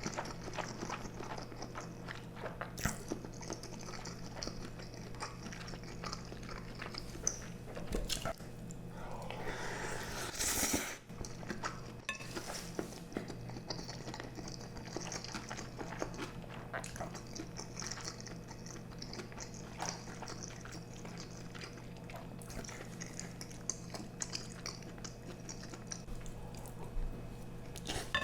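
Close-miked eating: chewing and slurping of stew and noodles, with small clicks of utensils against the pan and a steady low hum underneath; a longer slurp about nine to eleven seconds in.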